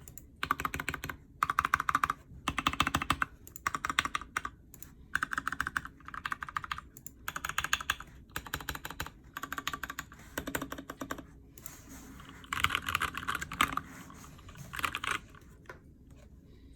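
Typing on an Alice-layout mechanical keyboard with a frosted acrylic case, lubed Cherry MX Brown switches and PBT keycaps. The keystrokes come in quick bursts of about a second, with short pauses between them.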